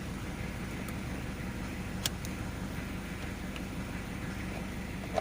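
Steady hum of a car idling, heard inside the cabin, with one small click about two seconds in.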